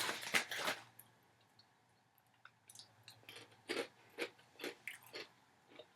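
A person chewing a crunchy Parmesan garlic popcorn-type snack close to the microphone: a loud burst of crunching at the start, then separate crisp crunches about twice a second in the second half.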